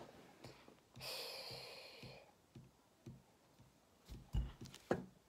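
Quiet room with a soft breathy exhale about a second in, followed near the end by a few faint knocks and a click from a hand handling a small plastic lamp.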